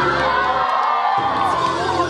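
A crowd cheering and yelling over loud playback music; the music's bass cuts out for about half a second in the middle as the track changes.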